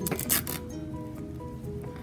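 Quiet background music with held notes, and a brief crackling rustle near the start as a doll's fabric skirt with a Velcro fastening is handled.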